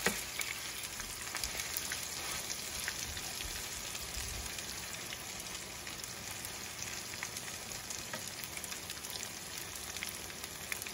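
Oil sizzling steadily around pasta-and-vegetable patties shallow-frying in a nonstick pan, with light clicks from a metal spoon and fork pressing and turning them.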